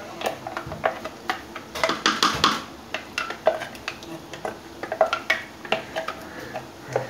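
Wooden spoon scraping and tapping against a small bowl and the rim of a large aluminium pot as ground green masala paste is knocked off into the meat: irregular clicks and knocks, busiest about two seconds in.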